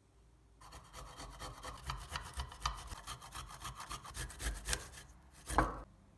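Fresh ginger root being grated on a metal grater: quick, rough back-and-forth rasping strokes, with one louder stroke near the end.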